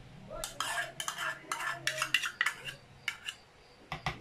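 Metal spoon scraping and clinking against a ceramic bowl in a run of quick strokes, scraping a mixture out into a jug, with two sharper clicks near the end.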